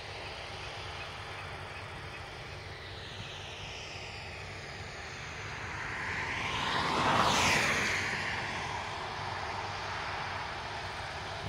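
A passing engine-driven vehicle grows louder to a peak about seven seconds in, then fades, its pitch falling as it goes by. A steady low rumble runs underneath.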